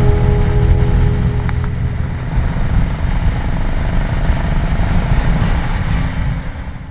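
Motorcycle riding along with its engine running under heavy wind rumble on the on-board microphone. Guitar music fades out over the first second or two.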